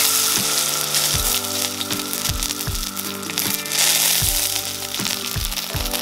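Skewered cicadas sizzling as they deep-fry in hot peanut oil in a wok. The sizzle surges near the start and again about four seconds in. Background music with a steady beat plays underneath.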